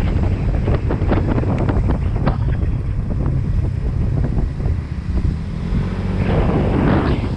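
Wind buffeting the microphone of a moving motor scooter: a heavy, continuous low rumble with gusty crackle. About six seconds in, a louder rush of hiss swells up.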